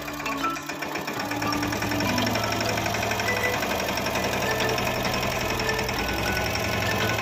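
Mahindra Yuvraj 215 mini tractor's single-cylinder diesel engine running steadily under load with a fast, even clatter as it pulls a tillage implement through the soil.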